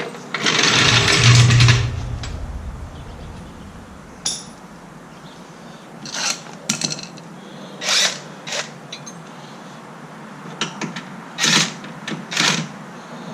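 A power tool runs in one burst of about a second and a half, followed by scattered short metallic clicks and knocks from hand work on the wheel hub.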